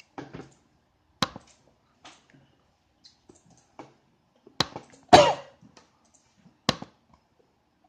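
Sharp single clicks of a computer mouse, a few seconds apart, with a louder short noise just after five seconds in.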